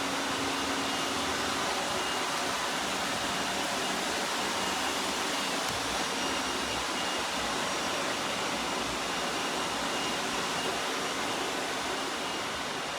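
iRobot robot vacuum running: a steady rushing hiss from its suction motor and brushes, with a faint high whine.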